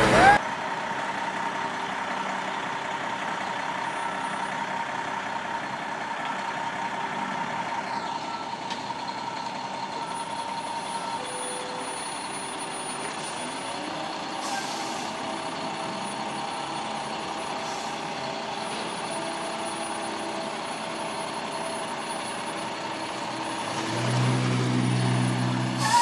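Heavy truck engine running steadily at the scene of a stuck concrete mixer, with faint intermittent beeping. A louder, low engine note comes in near the end.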